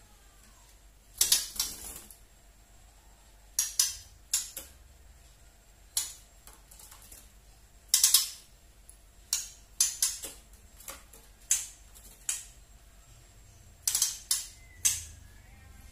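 Young speckled (trotol) white-rumped shama giving its 'tretekan' call: short, dry, rattling clicks in irregular clusters every second or two, with quieter gaps between.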